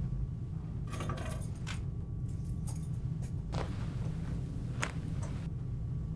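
A bunch of keys on a keyring clip jingling and clinking as hands handle them, in a few short rattles and single clinks, over a low steady hum.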